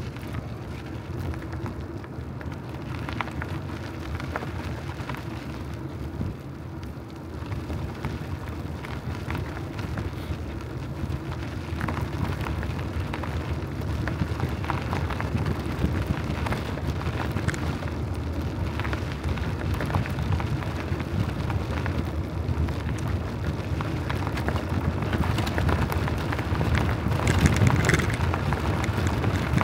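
Wind rushing over the microphone and tyre rumble from a moving bicycle, with a constant crackling rattle, growing gradually louder toward the end.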